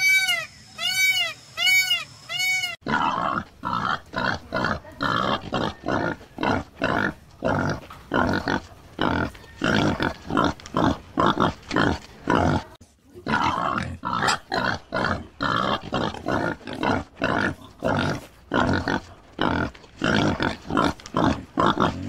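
A repeated arching, whistle-like call, about two a second, stops abruptly about three seconds in. An animal then grunts rapidly in short, rhythmic grunts, two or three a second, with a brief pause midway.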